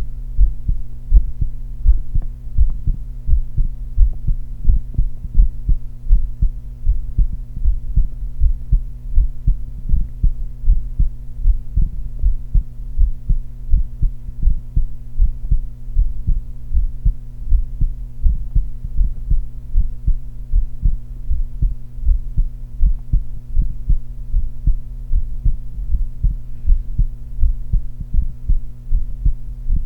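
Human heart sounds heard through auscultation: a steady resting heartbeat of paired lub-dub thumps at a normal rate, over a steady low hum. The uploader notes a very soft systolic murmur.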